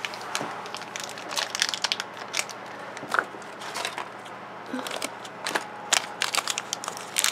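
Crinkly red plastic blind-bag wrapper crackling and crinkling as it is handled and worked open by hand, in irregular crackles.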